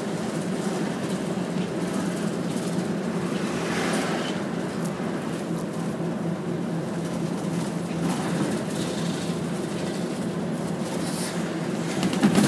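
Route bus heard from inside the cabin while driving: a steady engine drone with road and tyre noise, and a brief louder jolt near the end.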